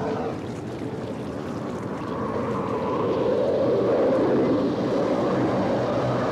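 Cartoon sound effect of a whirlpool of water being drawn up into a spout: a steady rushing noise with a wavering tone, louder from about two seconds in.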